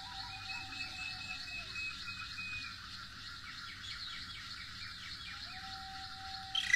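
Flutes holding long, clear notes: a low note and a high note together, which die away about halfway through, and after a pause a new low note begins. Under them runs a continuous bird-like chirping and twittering, and a sharp louder accent comes right at the end.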